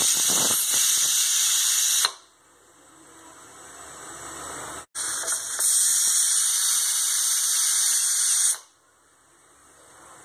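Pressure cooker on a gas burner letting off steam through its weighted whistle valve, a sign that it has come up to pressure. A loud, steady steam hiss cuts off suddenly about two seconds in; a second release of about three seconds starts past the middle and also cuts off sharply.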